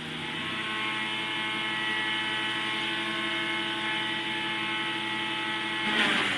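Early Asplundh mobile wood chipper, its Ford 223 inline-six engine running steadily at speed and driving the cutter drum. A short, louder noisy swell comes near the end.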